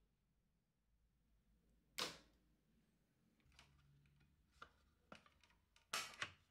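A cable tie on the scooter's rear brake lever snipped with one sharp click about two seconds in, then a few light clicks and a louder double click near the end from hands working at the swingarm, over near silence.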